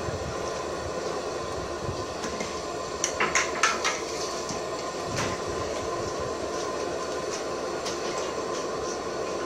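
Cooking oil poured from a plastic bottle into an empty aluminium wok, then a quick run of metallic clinks and knocks a little after three seconds in, over a steady rushing noise.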